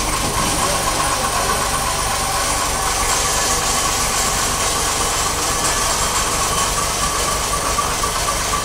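Restored 1942 Ford truck's engine running steadily.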